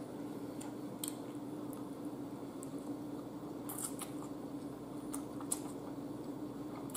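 Close-miked eating sounds: someone chewing spaghetti, with scattered soft wet mouth clicks over a steady low hum.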